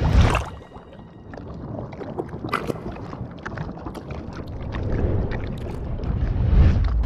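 Cartoon sound effects: a brief loud burst at the start, then a low rumbling with scattered crackles and gurgles that swells again near the end.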